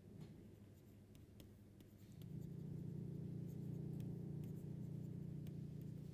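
Faint ticks and scratches of a stylus handwriting on a tablet screen. A low steady hum comes in about two seconds in and is the loudest part.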